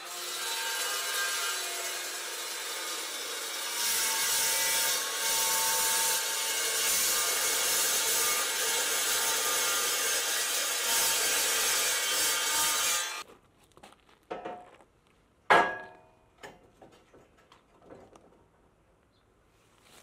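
Evolution toothed-blade chop saw cutting through steel tubing: a loud, steady grinding with a ringing tone, growing louder about four seconds in as the blade bites, then stopping abruptly. A couple of seconds later come a few light knocks and one sharp clang with a brief ring.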